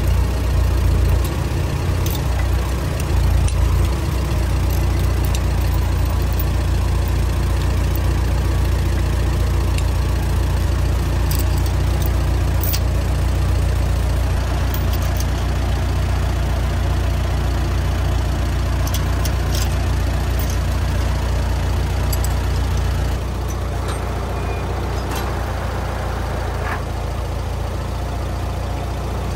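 1954 Allis-Chalmers WD45 tractor engine idling steadily, with a few light clinks over it. The level drops a little about 23 seconds in.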